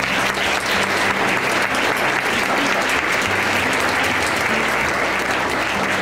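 Audience applauding steadily, a sustained round of clapping from a roomful of people.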